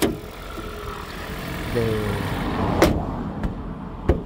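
Toyota Prius 2012 engine idling evenly, with no misfire shake, the condition after the spark plugs were changed. A few sharp clicks and a brief hesitant vocal sound about two seconds in.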